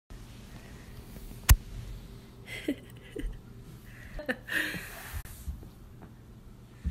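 A small dog in a plush costume moving and shaking on a rug, with faint rustling, a few short pitched sounds and one sharp click about a second and a half in.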